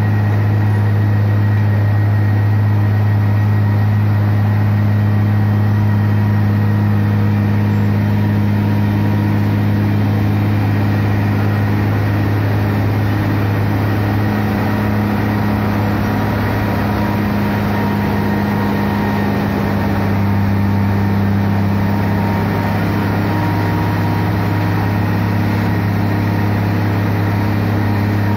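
Wirtgen road milling machine's diesel engine running: a loud, steady drone with a deep hum.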